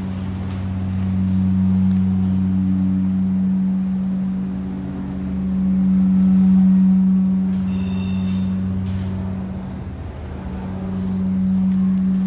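Glass passenger elevator running as the car travels up: a steady low hum, with a short high electronic chime about eight seconds in. The hum dips briefly near ten seconds as the car nears its stop.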